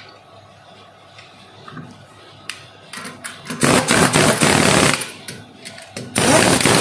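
Pneumatic impact wrench hammering lug nuts tight on a car wheel, in two bursts: one about a second and a half long midway, a shorter one near the end. A few light clicks come before the first burst.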